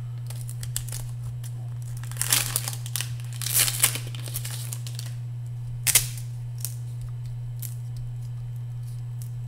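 A 1994 Donruss baseball card pack's foil wrapper is torn open and crinkled by hand in a few short bursts, the sharpest about six seconds in. A steady low hum runs underneath.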